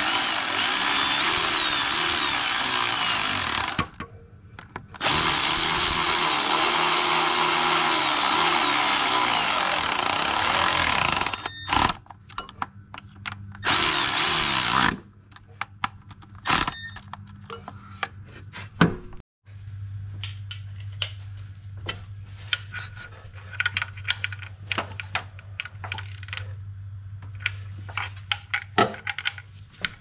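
Handheld power tool running bolts down in three bursts, a long one and a short one after the first, its motor pitch wavering as it runs. In the second half, a steady low hum with scattered light clicks and rattles.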